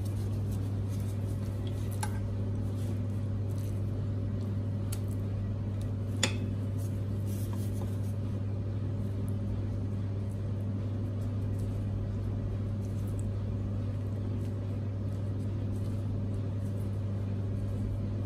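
Steady low mechanical hum of commercial kitchen equipment, with a few light clicks and taps, the sharpest about six seconds in.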